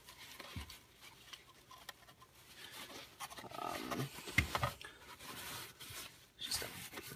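Paper towel rustling and crinkling softly in irregular bursts as hands unwrap it from around a small model.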